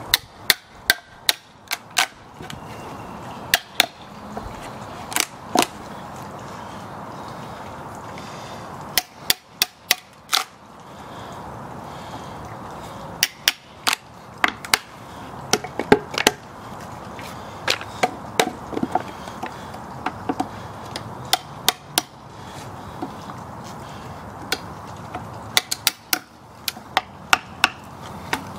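Claw hammer striking a wood chisel in runs of two to five sharp blows with short pauses between, splitting out the waste between saw kerfs to clear a notch in a pressure-treated 6x6 post.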